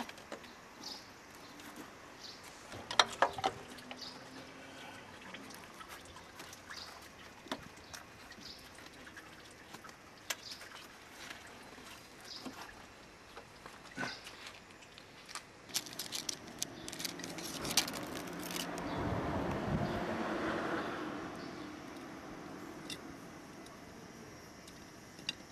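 Hands and tools working in a diesel 4x4's engine bay at an oil filter: scattered clicks and knocks of metal and plastic, with a cluster of sharp knocks a few seconds in. Later a rushing hiss swells and fades over a few seconds.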